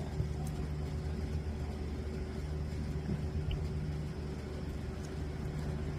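Steady low mechanical hum at a constant pitch, with a light hiss underneath.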